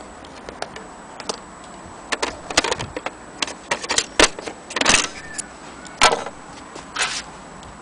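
Vintage Erika portable manual typewriter being typed on: a string of irregular sharp key clacks, starting about two seconds in, with a longer rattling clack near the middle.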